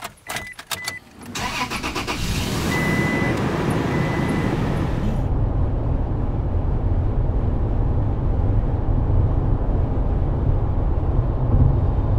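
Clicks and a short beeping dashboard chime, then a Toyota's engine starts about a second and a half in. It settles into a steady low drone of engine and road noise inside the cabin as the vehicle drives.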